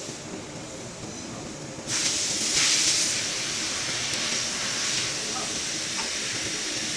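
A loud, steady hiss starts suddenly about two seconds in and keeps going without a break.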